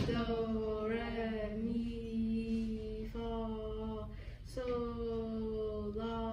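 Young male voices sight-singing a string of held notes, mostly on about the same pitch with short breaks between them, in a solfège exercise.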